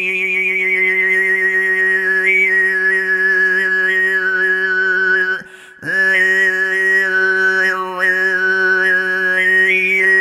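Tuvan throat singing: a steady low drone with a high, whistle-like overtone melody moving above it, breaking off briefly for a breath about halfway through.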